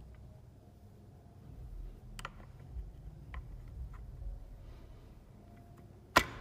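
Small metal parts of a chainsaw chain brake being handled and fitted by hand: a few light clicks, then one sharp click near the end as a part goes into place.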